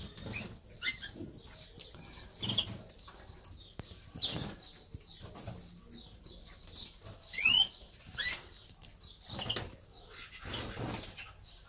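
Canaries in a flight aviary fluttering their wings in short irregular bursts, with a few brief high chirps, the clearest about seven and a half seconds in.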